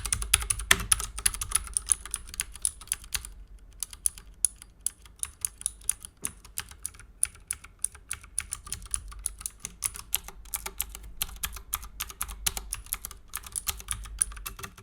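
Typing on a Leopold FC750R BT mechanical keyboard with clicky Cherry MX Blue switches: rapid, irregular keystroke clicks. There is a brief pause a few seconds in, the strokes are sparser in the middle and grow dense again near the end before stopping.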